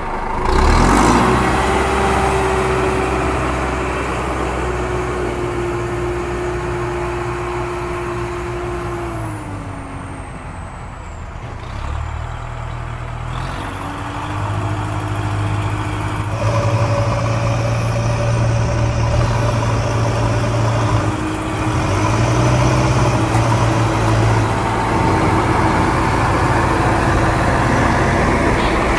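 Engine sound of a heavy motor vehicle, dubbed over the toy footage, running steadily. Its pitch falls about a third of the way in, then picks up again.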